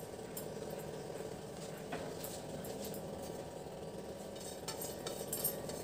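A wooden spatula stirring and scraping a thick milk mixture in a kadai, with scattered light clicks and taps of utensils and bowls, several of them in the second half, over a steady low hum.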